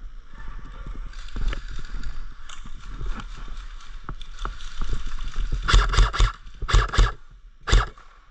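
Footsteps and rustling through dry brush and leaves: many small crunches, then a cluster of loud rustling bursts in the last few seconds.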